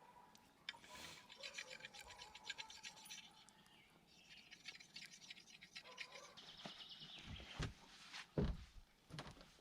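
Faint, fast scraping or rasping strokes, then a few dull low thuds near the end.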